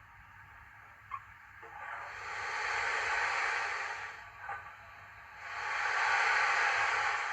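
Steam injector sound effect from a model steam locomotive's sound decoder, played through the model's speaker: a hiss that swells up about two seconds in, dips, then comes back louder and cuts off suddenly near the end.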